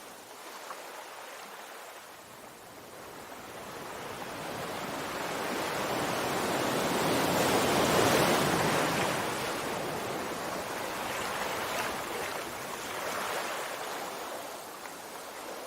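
Sea waves washing on a shore: the surf swells up to a loud peak about halfway through, then slowly recedes.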